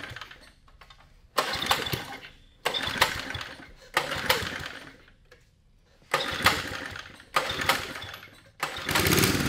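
Tecumseh HS50 five-horsepower flathead engine on a 1972 Sears Roper mini bike being pull-started by its recoil cord. Five pulls each give a short burst that dies away, and near the end the engine catches and keeps running.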